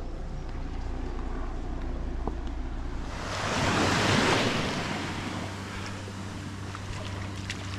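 A small wave washing up onto a sandy beach: a rush of surf that swells for about a second and then fades away.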